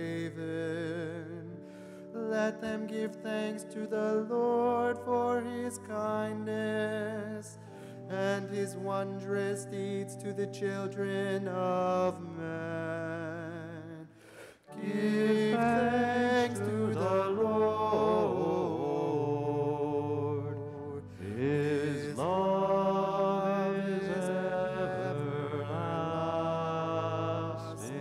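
A solo cantor singing with vibrato over sustained organ chords: the sung responsorial psalm of a Catholic Mass. About halfway through the singing breaks off briefly, then a new phrase starts louder.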